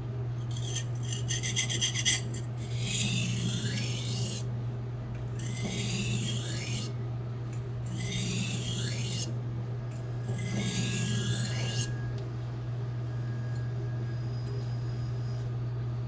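Hand-forged Blue #2 carbon-steel kitchen knife being sharpened on a whetstone: a quick run of short, rapid scrapes, then four long rasping strokes along the stone about two and a half seconds apart. A steady low hum runs underneath.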